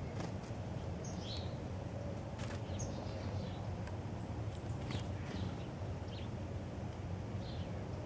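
Small backyard songbirds giving short, scattered high chirps over steady outdoor background noise, with a few sharp clicks.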